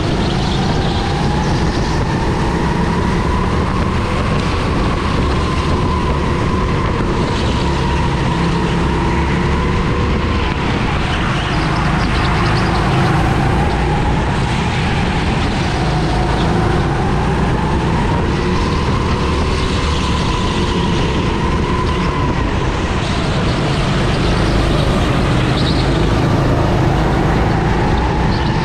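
Kart engine heard from on board during a race, running continuously at high revs, its pitch rising as it accelerates and dropping each time it slows, several times over.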